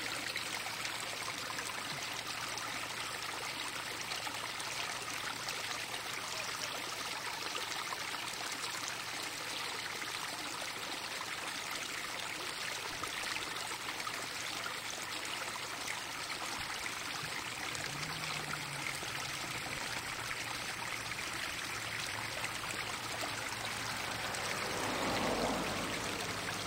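Steady rush of running water from a stream, an even hiss without a beat, that swells briefly near the end.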